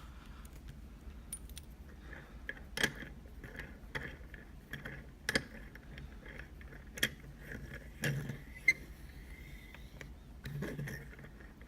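A key and a Yale rim cylinder being handled: scattered sharp metal clicks and light jingles, about seven of them spread out with pauses between.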